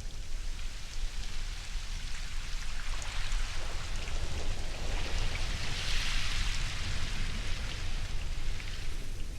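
Ocean surf: a wave washes in, swelling to its loudest about six seconds in and then easing, over a low steady rumble.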